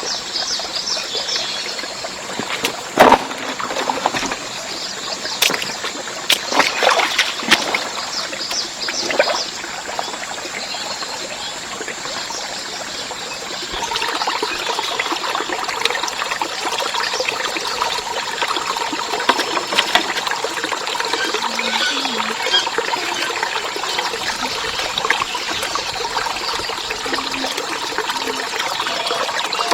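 Water trickling and pouring steadily, with several sharp knocks in the first ten seconds, the loudest about three seconds in.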